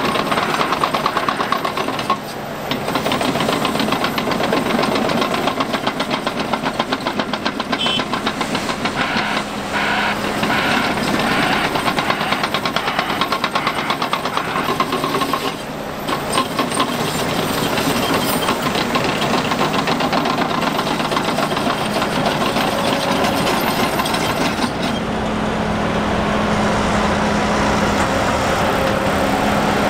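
Large diesel engine of a Volvo EC950F hydraulic excavator running hard while loading dump trucks, with a fast, even pulsing that eases briefly twice. A steady low hum joins near the end.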